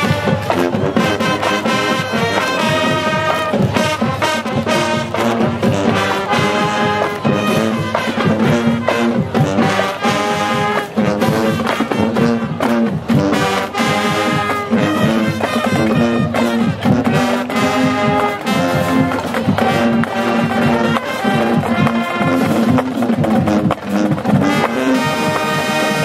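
High school marching band playing loudly: trumpets and trombones carrying the tune over steady drum-line strikes.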